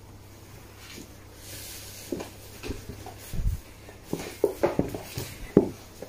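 A cat squirming and turning around inside a small paper gift bag: the bag crinkles and knocks against the tile floor in a string of short knocks and rustles, with a dull thump about three and a half seconds in and the sharpest knock near the end.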